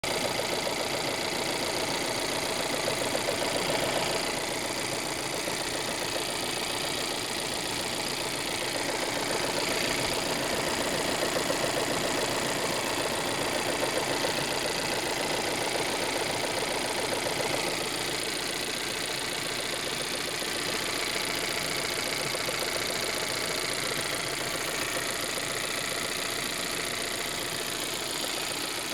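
Volvo 1.5 T3 three-cylinder turbo petrol engine running at idle with a fast, steady knocking noise, slightly quieter from about two-thirds of the way in.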